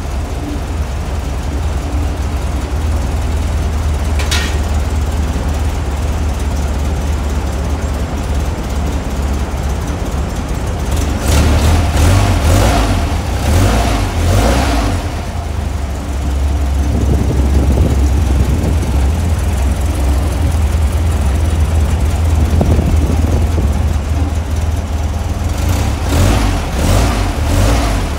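A 1914cc VW air-cooled flat-four engine with dual 44 IDF Weber carburetors running on a test stand, idling steadily. It is given a spell of quick throttle blips about eleven seconds in and another near the end.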